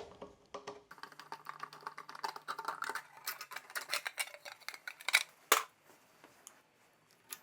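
Rapid run of light metallic clicks and rattles from hand tools working on a motorcycle's rear tail light assembly. The clicks thin out after about five and a half seconds.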